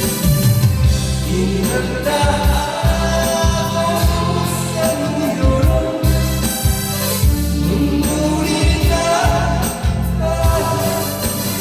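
A song: a singing voice carries a melody over band accompaniment with a heavy bass.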